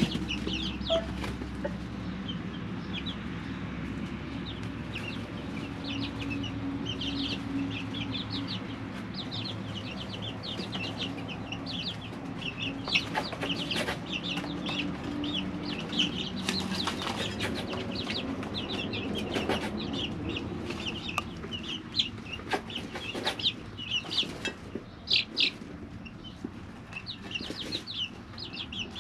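A brooder full of three-week-old chicks peeping: a constant stream of short, high peeps from many birds over a steady low hum, with a few sharp taps or pecks in the second half.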